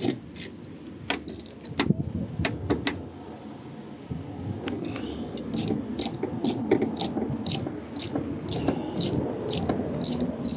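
Irregular sharp metallic clicks and clinks of hand tools and small fasteners being handled, over a low rumble of handling noise.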